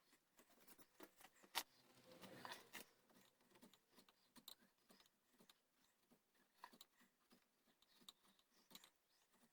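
Faint, irregular light clicks and short scratches of hand work on a wooden gunstock, with one sharper click about a second and a half in and a brief spell of scraping just after.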